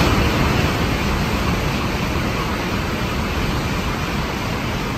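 An N700-series Tokaido Shinkansen train passing through the station at speed without stopping: a steady rush of air and wheel noise. It is loudest just as the front cars go by and begins to fade near the end as the last cars pass.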